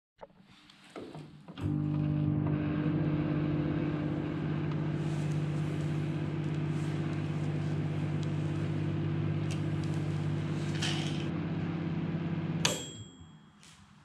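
Dial-timer microwave oven: the knob clicks as it is turned, then the oven runs with a steady hum for about eleven seconds and stops with a sharp bell ding as the timer runs out.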